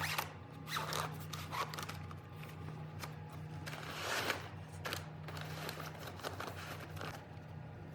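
Rustling and scraping of booth frame bars and magnetic strips being handled and slid into a bag, with a few light knocks, over a low steady hum.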